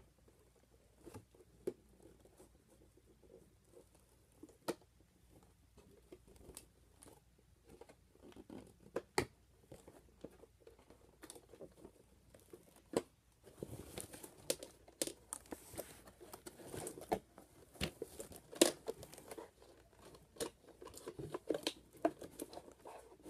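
Toy packaging being handled: cardboard and plastic rustling, with scattered light clicks and taps at first, then denser crinkling and tearing from about halfway through.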